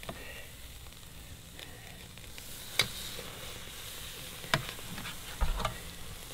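Oiled steaks sizzling on a charcoal grill, the oil dripping onto the hot coals and making them flare up. A few sharp clicks stand out, about three seconds in and near the end.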